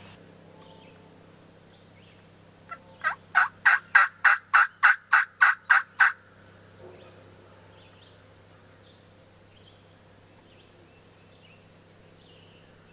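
Turkey call run in a series of about a dozen hen yelps, roughly three a second, starting soft and quickly getting loud, sounded to lure a gobbler in to a hen. Faint small-bird chirps follow.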